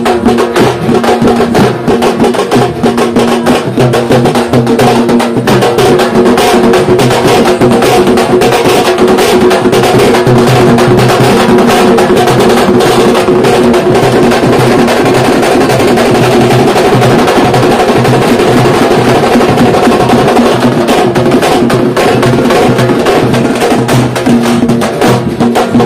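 Dappu frame drums beaten with sticks in a fast, dense, continuous rhythm over a steady held tone.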